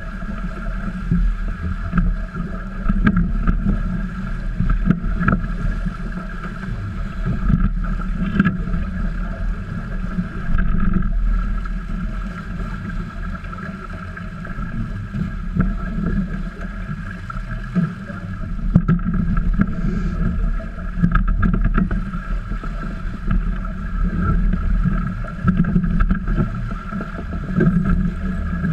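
Wind buffeting the microphone and water rushing along the hulls of a trimaran under sail, with a steady high hum underneath.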